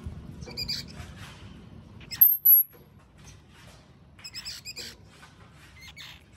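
Baby squirrels squeaking: short, high-pitched squeaks scattered through, with the loudest pair about two seconds in and a quick run of squeaks around four to five seconds in.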